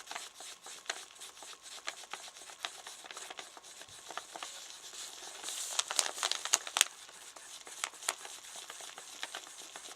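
Plastic knife stirring and scraping two-part glue: light, scattered clicks and scrapes that grow busier about halfway through.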